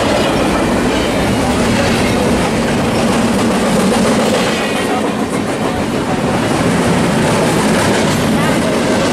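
Freight train cars rolling past close by: a loud, steady rumble and clatter of steel wheels on the rails.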